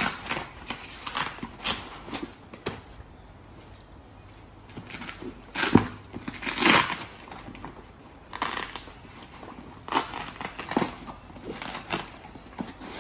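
Handling noises as pistols are pushed into the elastic holders of a nylon rifle bag's pistol panel: nylon fabric rustling with scattered knocks and clicks, the loudest a knock and a longer rustle about six seconds in.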